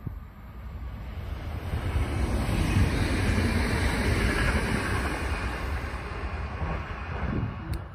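DB class 440 electric multiple unit passing at speed. Its running noise builds over the first couple of seconds, peaks as the train goes by and then fades as it pulls away.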